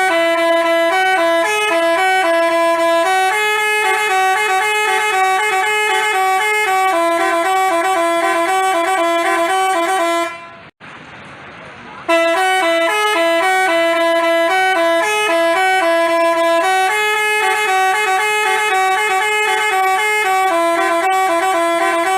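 Multi-tone telolet basuri horn playing a tune of short stepped notes. It breaks off about ten seconds in and starts the phrase again a second and a half later.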